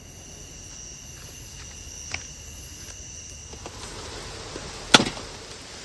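Insects chirring in steady high tones, one of them pulsing, with a sharp click about two seconds in and a louder knock about five seconds in.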